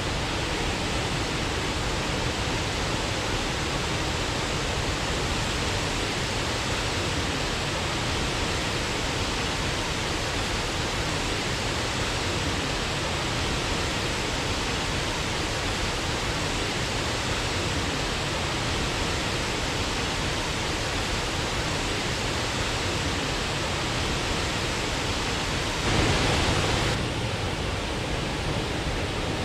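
Waterfall rushing, a steady, even roar of falling water, swelling louder for about a second near the end.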